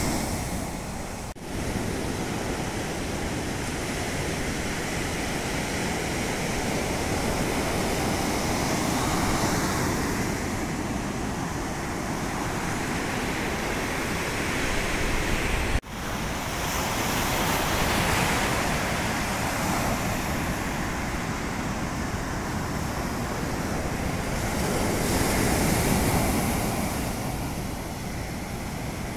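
Sea surf breaking and washing up a sandy beach: a continuous rushing that swells and eases every several seconds, broken twice by a brief drop-out.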